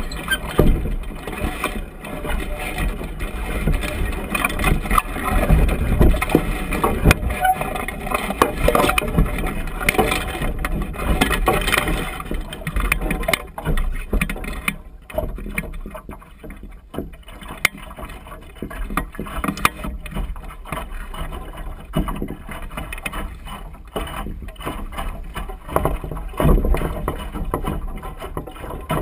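Water splashing and slapping against the hull of a small Minifish-type sailing dinghy under way, with irregular knocks and wind rumble on the deck-mounted microphone. It is louder in the first half and eases off about halfway through.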